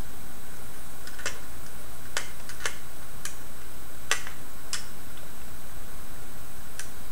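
Small hand tool and plastic robot-chassis parts clicking and ticking: about nine sharp, irregular clicks with the loudest about four seconds in, as the motors are worked loose from the chassis.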